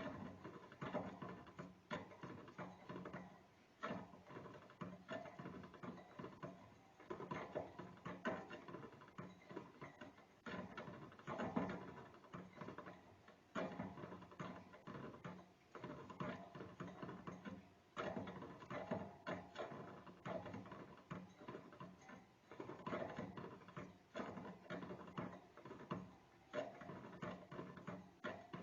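A small rodent gnawing, wearing down its teeth: rapid scratchy scraping strokes in uneven runs, with brief pauses every few seconds.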